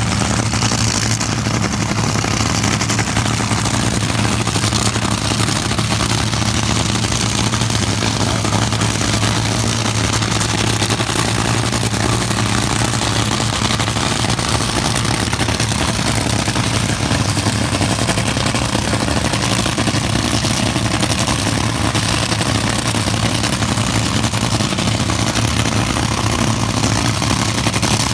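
Top Fuel dragster engines idling at the starting line with a steady, clattering rumble that neither rises nor drops. No launch is heard.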